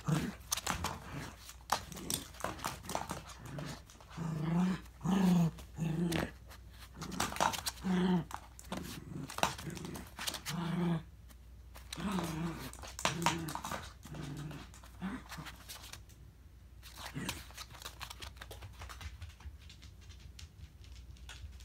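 Miniature dachshund giving a string of short, low growling grunts while it rustles and scratches at the gap under a bed skirt, trying to get at a toy capsule stuck beneath the bed. The grunts bunch in the middle and die away in the last few seconds.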